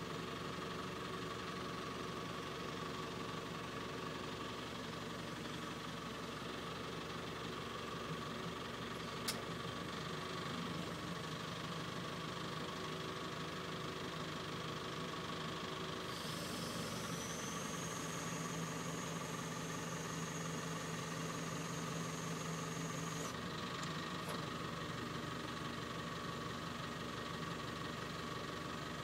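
Telescopic handler's diesel engine running steadily. About sixteen seconds in, a high whine comes in and the engine note strengthens for about seven seconds, then both drop back. A single sharp click sounds about nine seconds in.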